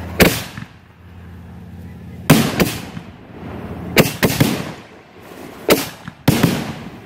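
Fireworks going off in a quick, uneven string of sharp bangs, about eight reports, several in close pairs, each ringing out briefly.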